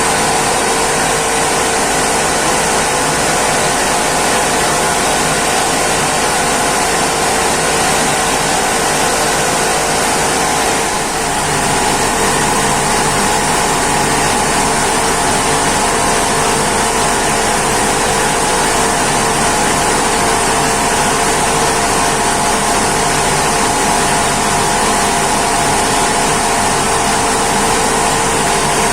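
Rice mill machinery running steadily: a loud, constant machine hum with a few steady tones over an even hiss, dipping briefly about eleven seconds in.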